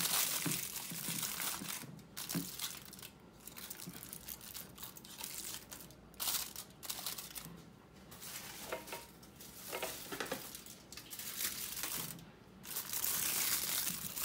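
Aluminium foil crinkling and rustling in irregular bursts as it is handled and pressed around the rim of a glass baking dish, loudest at the start and again in the last couple of seconds.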